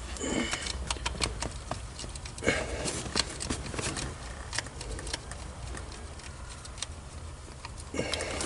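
Scattered light metallic clicks and taps, irregular and close by, from nuts and hand tools being handled while a nut is worked onto an ignition coil stud, over a steady low hum.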